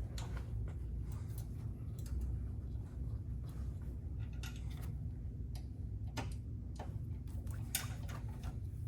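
Scattered light clicks and taps of hand tools and metal parts being handled, a few in quick little clusters, over a low steady hum.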